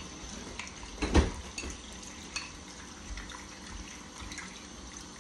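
Kitchen tap running into a bowl of peeled potatoes as they are rinsed by hand in the sink, with a loud knock about a second in and a few light clicks after it.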